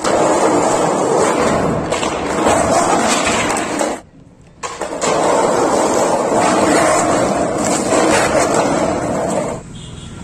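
Skateboard wheels rolling on rough concrete: a loud, steady rumble that breaks off for about half a second around four seconds in, then runs on until it drops away near the end.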